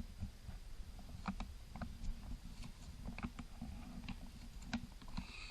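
Light, scattered clicks and taps of small objects being handled, over a low rumble of handling noise.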